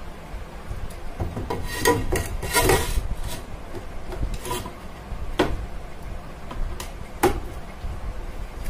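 Ceramic tile being laid and slid into place on a wooden shelf: scraping and rubbing against the wood, with a busy patch of scrapes and clicks about two to three seconds in and a few single light knocks after that.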